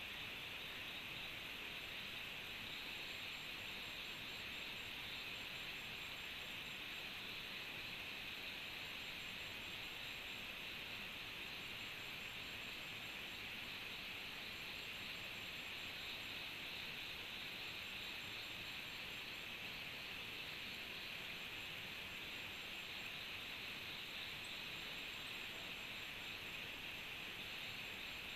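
Steady chorus of tropical insects, a continuous high buzz with a fainter, higher pulsing trill above it.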